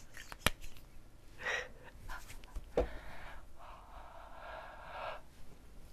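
A hand handling and rubbing close against the camera and microphone: a couple of sharp taps, a short rustle, then a longer rubbing sound from about three to five seconds in.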